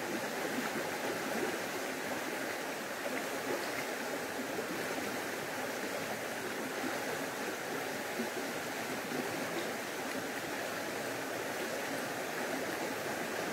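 Water of a small stream flowing steadily, an even rush without breaks.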